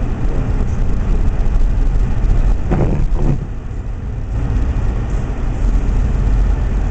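A car driving on a snowy road: a steady low rumble of engine and road noise. A short, higher-pitched sound breaks through about three seconds in.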